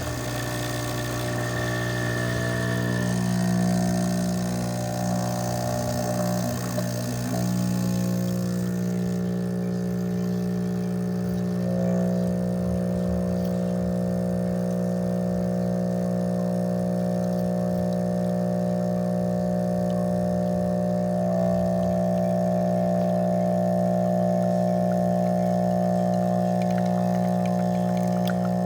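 DeLonghi espresso machine's vibratory pump running with a steady, loud buzz, and a hiss over it that fades out about a third of the way through.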